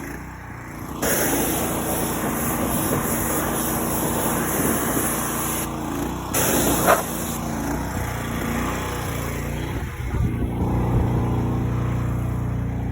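An engine running steadily. The sound shifts abruptly about a second in and again near the end, and there is a brief sharp noise partway through.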